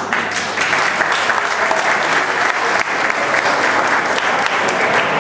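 Audience applauding: clapping breaks out all at once and keeps up steadily.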